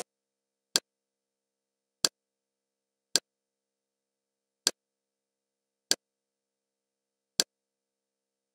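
Kodi user-interface navigation clicks: six short, sharp clicks at uneven intervals of about a second or more, each one as the menu focus steps to another item.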